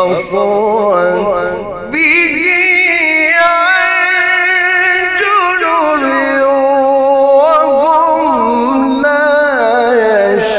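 A man reciting the Quran in a melodic, sung style: long held notes with ornamented turns, a short break near two seconds in, then one long drawn-out phrase that steps down in pitch about halfway through.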